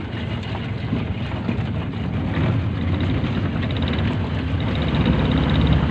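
A small motorboat's engine running steadily under way, mixed with wind on the microphone and water rushing past the hull. It grows a little louder toward the end.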